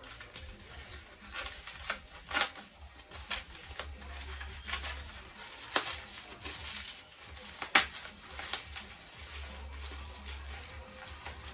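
Packaging rustling and crinkling as a small wrapped item is unwrapped by hand, with irregular sharp crackles every second or so.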